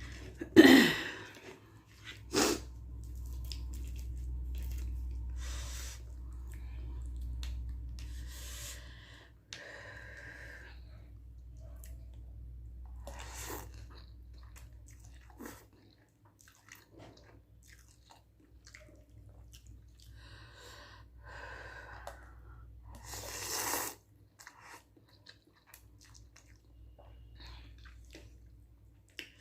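A person chewing spicy Korean instant noodles and rice cakes close to the microphone, in irregular mouthfuls over a low steady hum. There is a loud sudden breathy sound about a second in.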